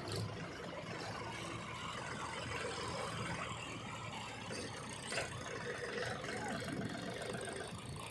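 Diesel engine of heavy farm and earthmoving machinery running steadily with a low hum.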